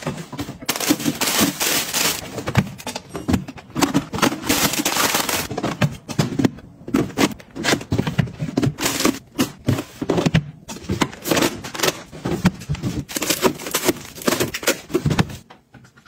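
Plastic freezer drawers being slid and frozen-food packets, ice-cream bars among them, being handled and dropped into them. The result is a rapid, uneven run of clicks, knocks and crinkling wrapper rustles with short pauses.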